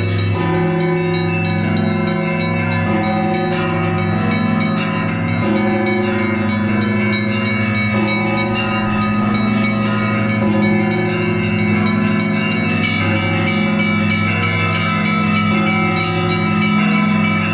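Russian Orthodox monastery bells ringing together in a continuous peal: deep large bells sounding about once a second under quick, overlapping strikes of smaller, higher bells.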